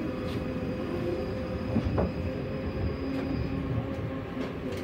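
Tram running on its rails: a steady hum with whining tones from the motors and running gear, a few light clicks from the wheels, and a brief squeal about two seconds in.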